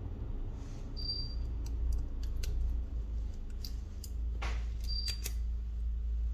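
Scattered small clicks and ticks of tools and parts being handled while a smartphone is taken apart, with a short scrape about four seconds in and two brief high squeaks, over a steady low hum.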